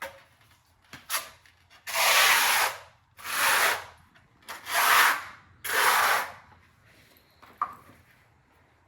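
Four rubbing strokes across a hard surface, like hand sanding, each lasting under a second, followed near the end by a single light click.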